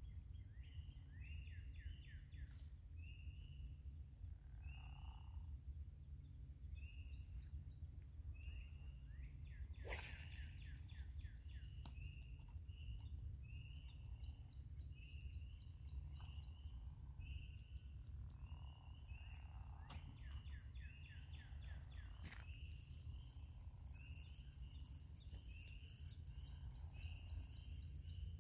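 Outdoor chorus of small animals calling: many short, high chirps repeating about once a second, several callers overlapping, over a low steady rumble. A single sharp click is heard about ten seconds in.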